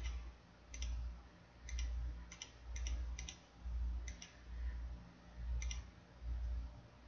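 Computer mouse clicking as vertices are selected one after another, a scattering of sharp clicks, several in quick pairs. Under them runs a low rumble that swells about once a second.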